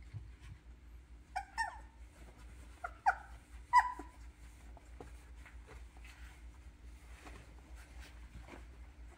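Two-and-a-half-week-old Doberman puppies whimpering: a few short, high squeaks that drop in pitch, about one and a half, three and four seconds in, the last the loudest.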